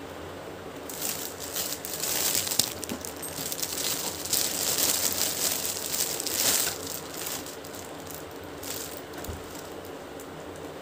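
Clear plastic packaging bag crinkling and crackling as it is handled, a dense run of small crackles that is loudest in the middle and dies down about seven seconds in.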